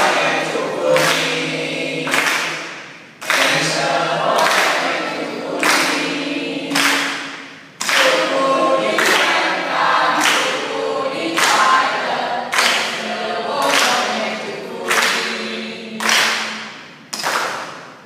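A large group of men and women singing together in unison, in short phrases of held notes, each phrase starting sharply and fading away before the next.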